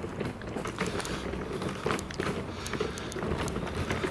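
Wheelchair wheels rolling over cobblestones, with a rough rumble and many irregular clicks and rattles.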